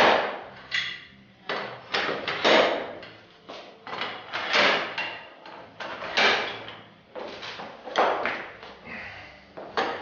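Metal parts of a paintless dent repair stand clanking and sliding as uprights and arms are taken off and fitted: a string of irregular knocks, each with a short ring.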